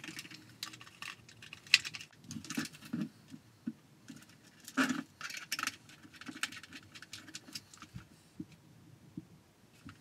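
Hands handling and fitting together the plastic casing of a small robot vacuum: scattered clicks, taps and light rattles, with sharper knocks near two seconds and near five seconds in.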